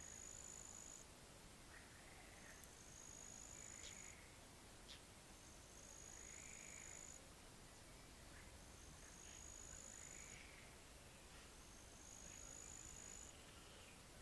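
Faint pond night chorus: an insect trilling in high, steady bursts about two seconds long, repeating roughly every three seconds, with frogs calling softly at a lower pitch in between.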